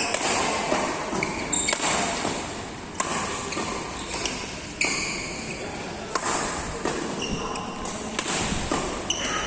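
Badminton rally: a racket striking the shuttlecock with a sharp crack about every second or so, and shoes squeaking on the court floor between shots.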